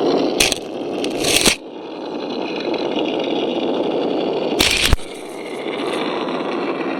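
Radio-controlled model vehicle running over rough ground: steady motor and tyre noise, broken by several sharp knocks and scrapes.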